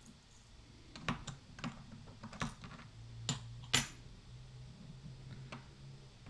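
Small metal lock parts and tools clicking and tapping on a work surface as a Master Lock 410 LOTO padlock's core is taken apart. There are about half a dozen separate clicks at uneven intervals, the loudest a little under four seconds in.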